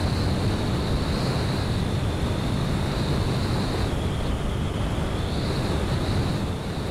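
Wind rushing over the microphone of a KTM Duke 390 motorcycle cruising at about 80 km/h: a steady, loud rush, heaviest in the low end, with no distinct engine note.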